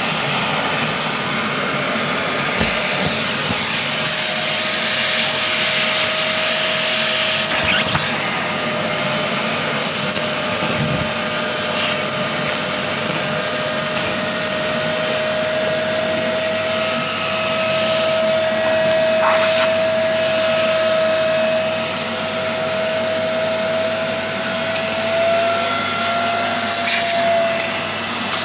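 Parkside PNTS 1500 C4 wet-and-dry workshop vacuum running continuously as it sucks up workshop dirt, with a steady whistling tone over the motor and airflow noise. A few sharp clicks as debris is drawn through the hose.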